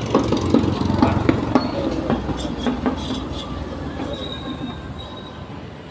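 Low rumble of street traffic with light knocks and clatter as items are set into a scooter's plastic top box, the whole fading over the last couple of seconds.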